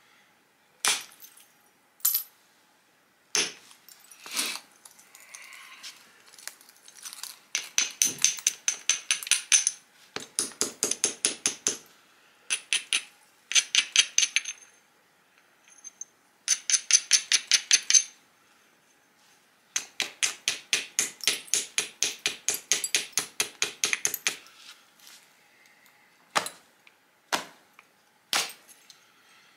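Flintknapping: an antler billet knocks against the edge of a stone flake in single sharp clicks, then long runs of rapid, rhythmic scraping clicks at several strokes a second as a hammerstone is rubbed along the flake's edge to abrade it, and a few more single billet knocks near the end.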